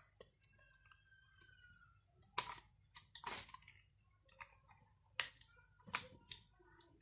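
Handling noises from coax connector and cold shrink tube parts: a few short, sharp clicks and rustles starting about two seconds in, with quiet between them.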